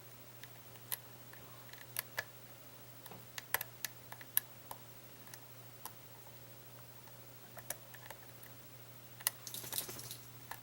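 Lock pick and tension wrench working the pins of a pin-tumbler lock: light, irregular clicks as pins are lifted and set, with a small cluster near the end as the lock goes into a false set. A steady low hum runs underneath.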